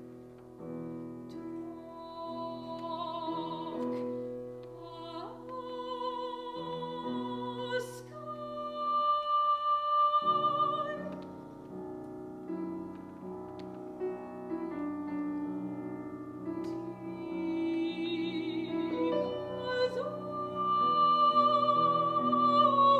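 Operatic singing with vibrato over sustained instrumental accompaniment. Long high notes are held about nine seconds in and again near the end, the loudest moments.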